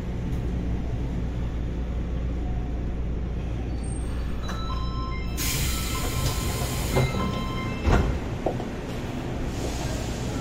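Subway train standing at a platform, its equipment giving a steady low hum. About halfway through comes a loud hiss of released air along with a few short electronic chime tones, then a single thump about eight seconds in.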